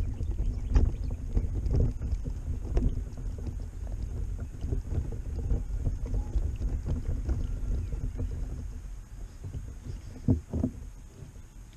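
Wind buffeting the microphone as a low rumble, with soft knocks and scrapes now and then and two sharper knocks near the end.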